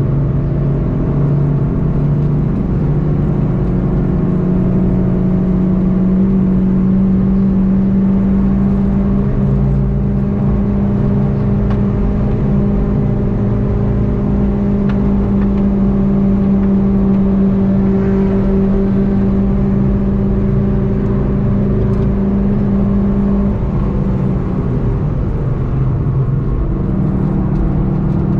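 Onboard sound from inside a VW Golf GTI TCR at high speed: its engine running steadily under load, with road and wind noise. About three-quarters of the way through, the engine note changes as the car slows for a bend, and near the end it rises again.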